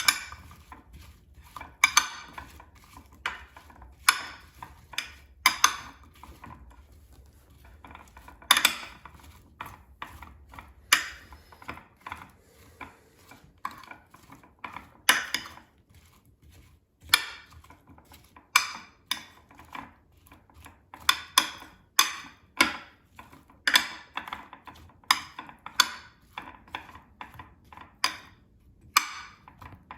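Kitchen utensils and a dish clinking and knocking in many separate, irregular strikes while the sliced pears are seasoned with cinnamon and honey.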